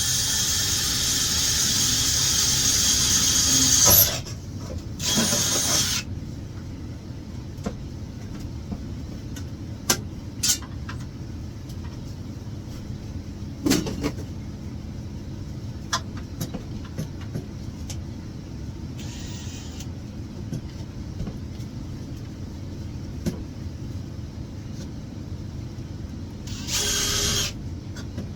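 Drill spinning a Klein knockout cutter through the sheet-metal enclosure: a loud run of about four seconds, a shorter burst about five seconds in, then scattered clicks and knocks, and another short burst near the end.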